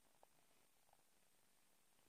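Near silence, with two faint, brief sounds about a quarter-second and about a second in.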